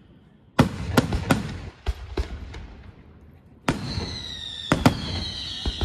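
Aerial fireworks shells bursting overhead: a run of sharp bangs begins about half a second in, then after a short lull a loud bang is followed by a high whistle that slowly falls in pitch, with more bangs near the end.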